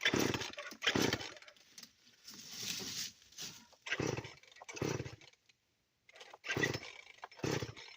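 Two-stroke chainsaw being pull-started: repeated yanks of the recoil starter cord, about seven in all, mostly in quick pairs, with the engine turning over but not settling into a run.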